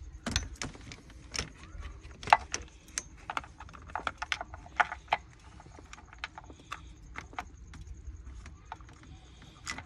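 Scattered light clicks and taps of a BMW X5's intake/exhaust camshaft (VANOS) solenoid being pushed back into its bore and its plastic wiring connector being handled, busiest in the first five seconds.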